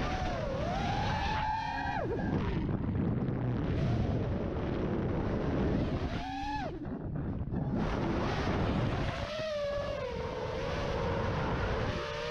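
FPV quadcopter's brushless motors and propellers whining, the pitch gliding up and down with each throttle punch and chop, over a steady rush of wind on the onboard microphone. About two-thirds of the way in the whine rises sharply and then cuts back. It then settles into a steadier, wavering tone as the quad flies low.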